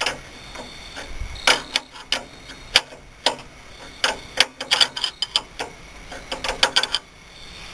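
Ratchet wrench clicking in short irregular runs while a stuck bolt is slowly turned out.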